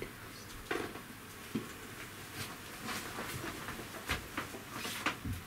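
Irregular light clicks and knocks, about a dozen, over a faint steady low hum.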